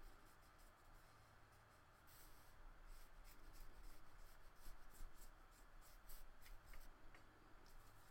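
Faint scratchy strokes of a paintbrush laying black watercolor paint on paper, a run of short brush strokes starting about two seconds in.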